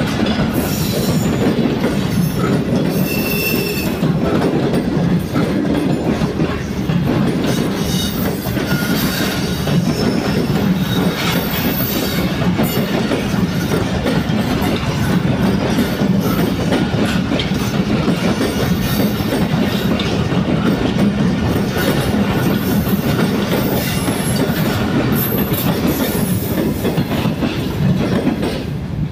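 Passenger coaches of a Pakistan Railways express rolling past as the train pulls out: a steady rumble of steel wheels on rail, with clickety-clack over the rail joints and brief high wheel squeals.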